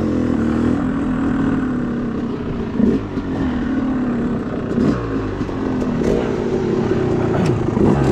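2013 Yamaha YZ250's single-cylinder two-stroke engine running under way on a dirt bike, its revs wandering with the throttle and rising sharply about three, five and eight seconds in.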